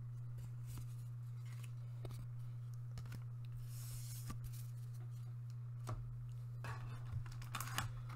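Trading cards being handled and laid down on a playmat: scattered small clicks and taps, a brief sliding hiss about four seconds in, and a denser flurry of card clicks and rustles near the end, over a steady low hum.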